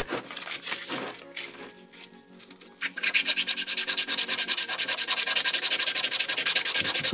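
Aluminium cube rough hand-sanded on sandpaper: light scuffing at first, then rapid, even back-and-forth strokes from about three seconds in.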